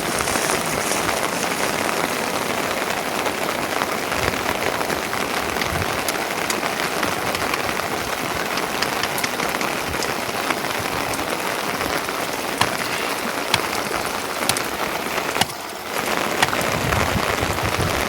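Steady rain falling: an even hiss with scattered sharp drop hits, dropping out briefly near the end.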